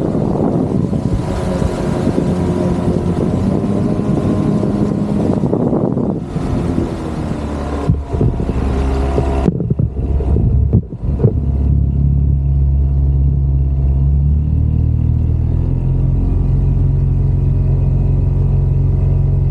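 Small outboard motor on an inflatable boat running at speed, its pitch rising and falling. About halfway through the sound turns suddenly duller, and after a few brief dropouts it settles into a steady deep hum.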